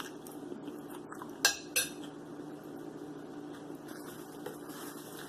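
Two short clinks of tableware about a second and a half in, a third of a second apart, over a low steady hum.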